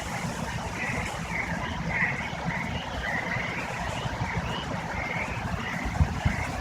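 Hurricane wind blowing steadily, rumbling and buffeting on the microphone, with faint short wavering whistles above it.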